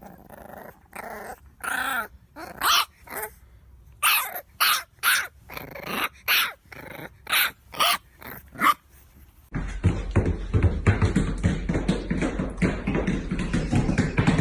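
A dog barking and growling in a run of short, separate calls. About nine and a half seconds in, it cuts to a louder, dense, noisy clatter.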